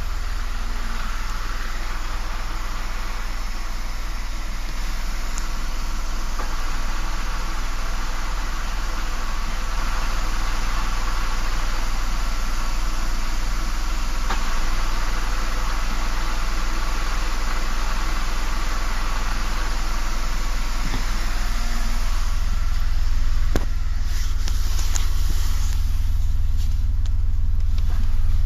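Renault Clio IV TCe 90's 0.9-litre three-cylinder turbo petrol engine running, with the car's clutch being worked to show the noise it makes when the clutch pedal is released. The sound shifts about three quarters of the way through.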